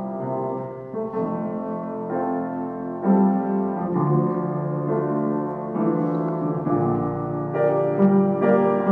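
Slow piano music, with held chords that change every second or two.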